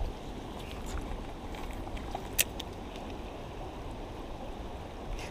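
Small creek running over stones as a steady low rush, with a sharp click at the start and another about two and a half seconds in.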